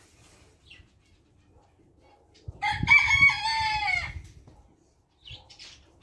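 A rooster crowing once, a single call of about a second and a half whose pitch drops at the end. Faint short chirps come just before and after it.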